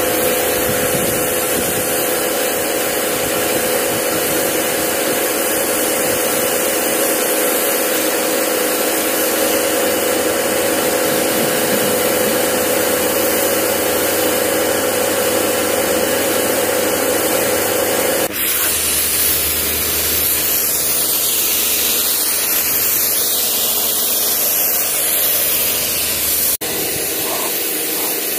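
A pressure washer's motor running with a steady hum while its water jet sprays with a loud hiss. About two-thirds of the way through, the motor hum drops away and the spray sound changes, with a brief dip near the end.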